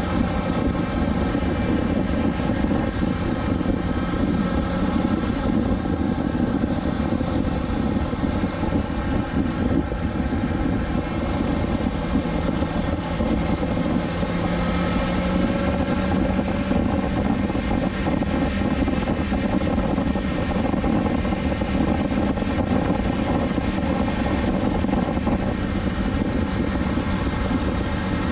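BMW S1000XR's inline-four engine running steadily at cruise, its note shifting only slightly.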